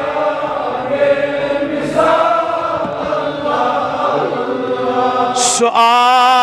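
A congregation of men chanting a devotional refrain in unison, many voices blended together. A single strong male voice takes up the singing again near the end.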